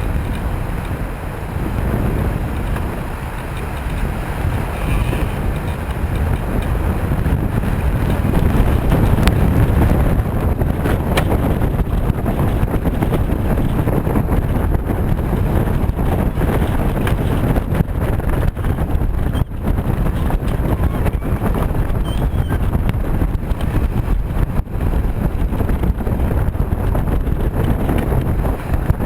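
Gusty wind buffeting the microphone aboard a Mini 6.5 sailboat sailing fast, a dense low rumble that grows a little louder about eight seconds in.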